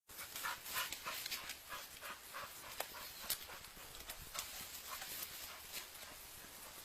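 A dog panting with quick, breathy breaths, louder in the first few seconds and fainter after that.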